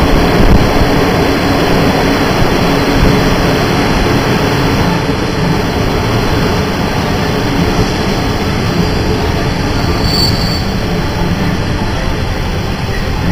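Passenger coaches rolling past close by, their wheels running steadily on the rails. There is a brief faint high squeal about ten seconds in.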